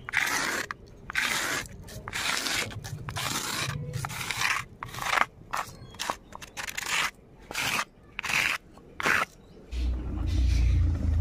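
Dry-roasted whole spices (cumin, coriander, dried red chillies) being ground to powder on a stone grinding slab: a run of short, rough scraping strokes, one or two a second, as the powder is worked and scraped together with a blade. Near the end the strokes stop and a low steady rumble begins.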